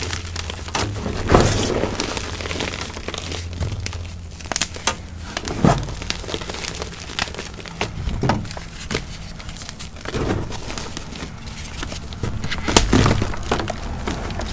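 Pasted gym chalk being crushed by hand, with irregular crisp crunches and cracks.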